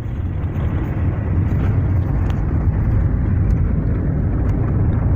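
Car driving along an unpaved dirt road, heard from inside the cabin: a steady low rumble of engine and tyres on the rough surface, with a few faint ticks.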